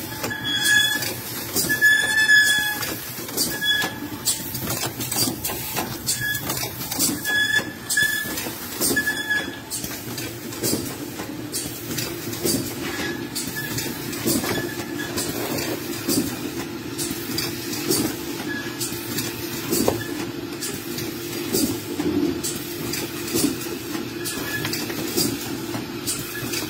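Pot-filling machine running on a conveyor line: a steady mechanical hum with frequent clicking and clacking, and short repeated squeals that are most frequent in the first ten seconds and come only now and then after that.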